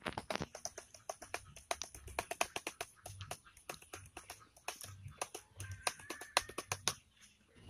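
Typing on a Dell laptop keyboard: rapid, irregular key clicks, several a second.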